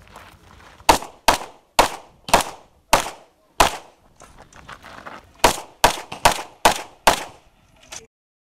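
Rapid pistol fire from an Open-division 9mm major pistol: six shots about half a second apart, a pause of almost two seconds, then five more in quick succession and a fainter pop just after; the sound then cuts off suddenly.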